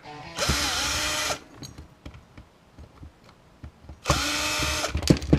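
Power drill-driver backing out Phillips screws: two runs of about a second each, the motor whining up to speed and holding, with faint handling clicks in the gap between them.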